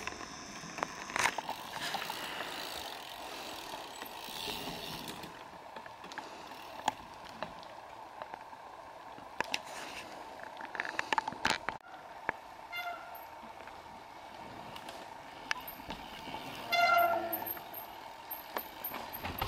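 Outdoor ambience with scattered clicks and knocks, and a short horn-like toot near the end, with a fainter one about two-thirds through.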